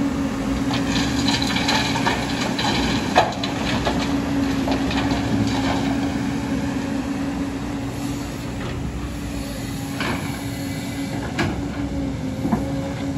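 JCB tracked excavator's diesel engine running under load with its hydraulics whining as the arm swings and dumps. Rock clanks sharply against steel, the loudest clank about three seconds in and several more near the end.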